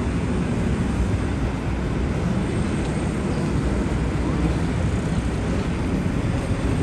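Steady city street ambience: a continuous low rumble of traffic and street noise, with no single sound standing out.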